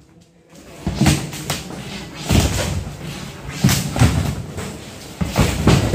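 Demolition of a metal-framed, plastic-sheeted tent structure: irregular bangs and thuds as frame poles are struck with a bar and fall among the sheeting, about seven knocks after a brief quiet start, some coming in quick pairs.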